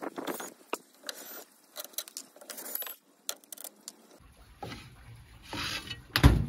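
Clinks and knocks of metal and glass as an oven door is taken apart: a cordless drill is set down on the door glass and the inner glass panel is lifted out, with a heavier clunk about six seconds in.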